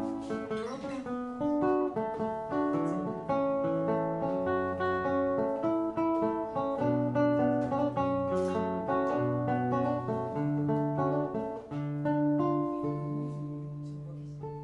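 Acoustic guitar playing a melodic instrumental passage, one note after another ringing on over the next, with deeper bass notes joining in the second half; it eases off a little near the end.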